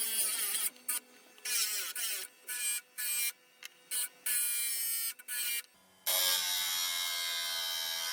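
Handheld electric drill running in short bursts, its motor pitch rising and falling with the trigger, then held at a steady speed for about two seconds near the end, boring holes in PVC.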